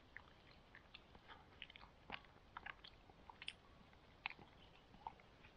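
A person chewing food, heard faintly as a run of short, irregular clicks.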